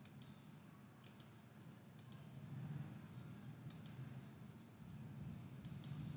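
Faint computer mouse clicks, mostly in quick pairs, coming every second or two over a low steady hum.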